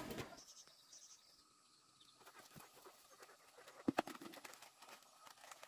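Knife and plastic seed bag being handled at a plastic bucket: faint rustles and light clicks, with one sharp click about four seconds in. The first two seconds are near silent.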